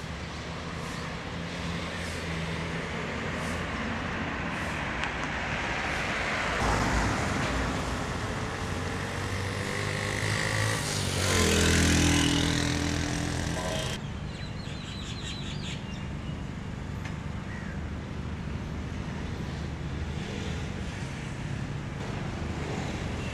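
Street traffic noise; a motorcycle drives past near the middle, getting louder and its engine note falling as it goes by. About two-thirds of the way through the traffic noise cuts off suddenly, leaving a quieter background.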